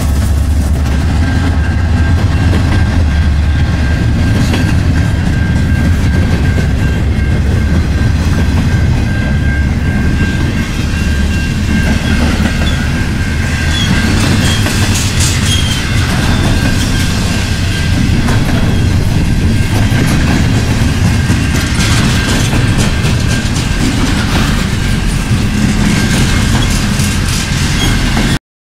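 Double-stack intermodal freight train passing close by: a steady heavy rumble from the rolling cars, with irregular clicks and clacks of wheels over rail joints and a thin steady whine above. Cuts off suddenly near the end.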